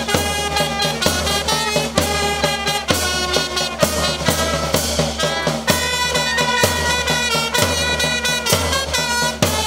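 Upbeat instrumental music with a steady beat, a strong bass note landing about once a second.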